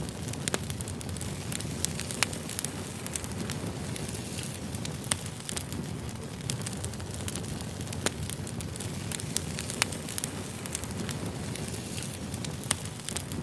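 Firewood burning and crackling: a steady low rushing with sharp pops scattered irregularly throughout, a few of them louder.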